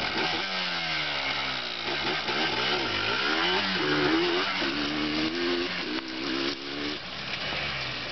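A person's buzzy, whistle-like 'sneeze whistle', set off by blown dust. It slides up and down in pitch for a few seconds, then holds wobbling notes before it fades near the end.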